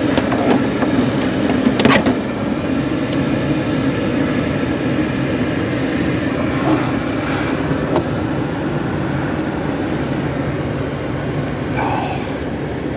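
Steady mechanical drone with a low hum, broken by a few light clicks and a short pitched sound near the end.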